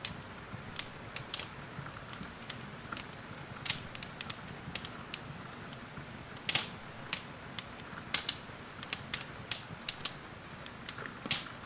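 Wood fire crackling, with irregular snaps and pops and a couple of louder cracks, over a steady soft hiss of rain.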